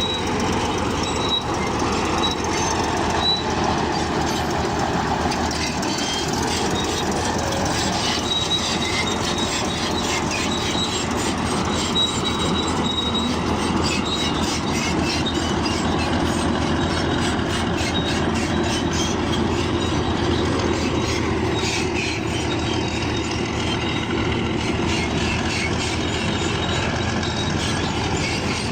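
Crawler bulldozer working: a diesel engine running under the steady clank and squeal of steel tracks, with an intermittent high-pitched squeal. A run of rapid metallic clatter comes about two-thirds of the way through.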